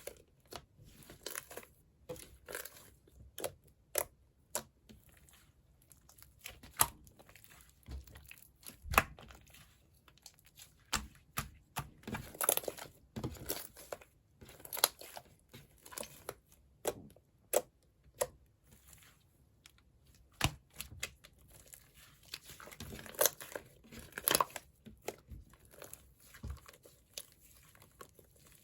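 Hands squishing and pulling a jiggly slime mixed with clay, making irregular sticky pops and crackles with short quiet gaps between them.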